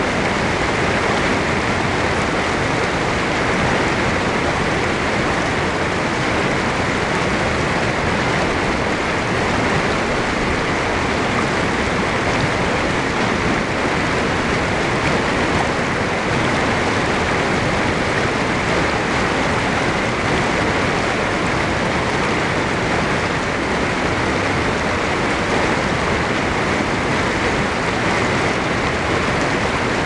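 Small mountain creek rushing over rocks, a steady, even water noise.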